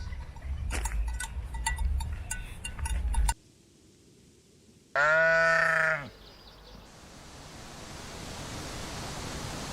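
Low rumble with scattered clicks that cuts off suddenly after about three seconds. Then comes a single loud animal call about a second long that drops slightly in pitch at its end, followed by a steady hiss that slowly grows louder.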